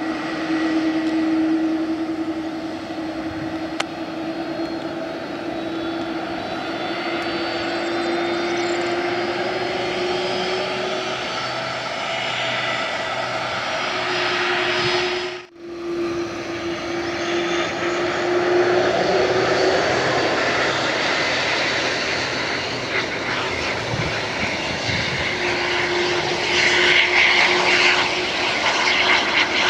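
Air Europa Airbus A330's jet engines running at low power as the airliner taxis on the runway: a steady drone with a held whining tone. The sound breaks off for a moment about halfway.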